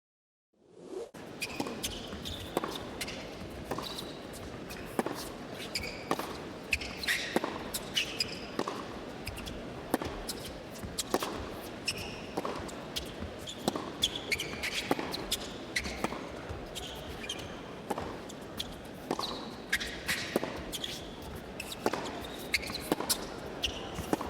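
Tennis balls struck by rackets and bouncing on an indoor hard court, a sharp hit every second or so, with short high squeaks of shoes on the court in a large hall.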